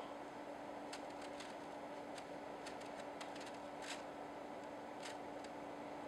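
Faint steady hum with a low hiss and a few scattered soft ticks.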